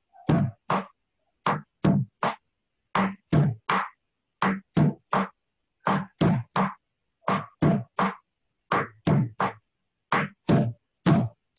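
Drum struck in a steady repeating pattern of three sharp strokes about every second and a half, a demonstration of the cumbia stroke from Darién.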